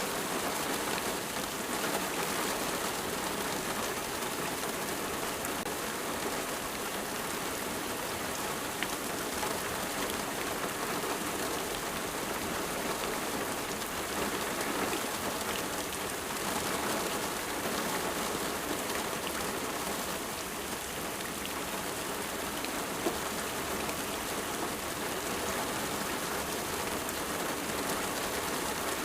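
Steady rain falling on a surface, a dense even patter with scattered individual drops.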